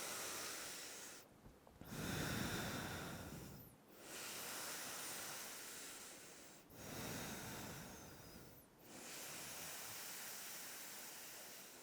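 A man's slow, deep breathing, in long even breaths of two to three seconds each with short pauses between, about five in all.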